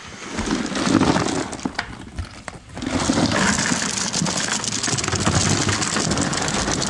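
Ice cubes pouring into a plastic bucket onto bagged bait fish. There is a shorter stretch of clatter and knocks, then from about three seconds in a dense, continuous rattle of ice.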